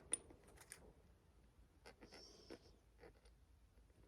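Near silence with faint handling noises: a few light clicks, one sharper just after the start, and a short scrape about two seconds in, as small bolts and a Loctite bottle are handled.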